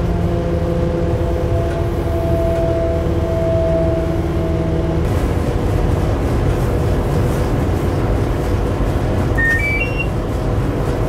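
Cab noise of a Eurosprinter class 120 electric locomotive running under way with a heavy freight train: a steady rumble of the moving train, with several steady humming tones for the first five seconds that then stop. About nine and a half seconds in comes a quick rising run of short beeps.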